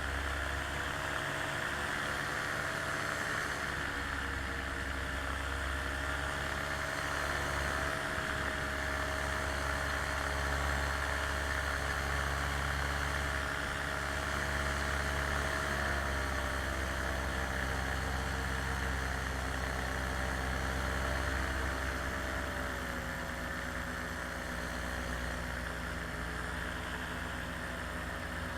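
A small aircraft's engine or motors running steadily in flight, with a constant hiss over the drone; its pitch shifts slightly a few times.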